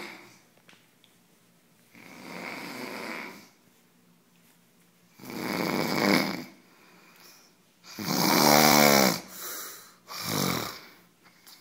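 A man snoring: four snores about two to three seconds apart. The loudest, about eight seconds in, has a pitched rasp, and a shorter snore follows it.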